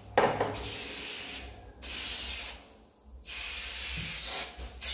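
Aerosol can of foaming oven cleaner spraying onto the inside walls of an electric oven: one long spray, a short break about three seconds in, then a second spray.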